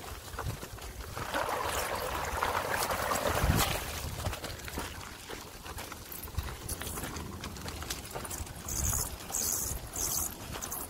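Bicycle rolling over a rough, puddled dirt track: tyre crunch with frequent rattles and knocks from the bike. From about a second in, a louder stretch of wet swishing as the tyres go through a puddle, ending in a hard knock.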